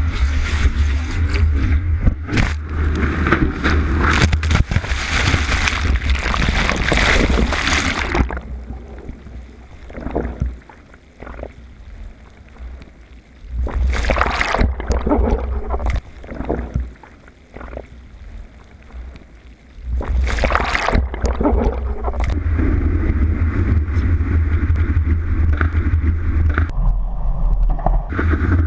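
Breaking surf whitewater rushing over a board-mounted action camera, with heavy low buffeting. After about eight seconds the camera is washed underwater and the sound turns muffled, with gurgling, sloshing and a few sudden surges, until the loud whitewater rush returns about twenty seconds in.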